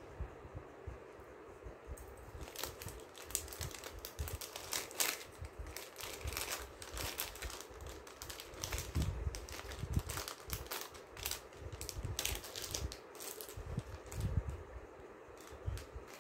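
Plastic packaging crinkling and rustling in the hands, an irregular run of crackles and small clicks that starts about two seconds in, with a few soft low thumps.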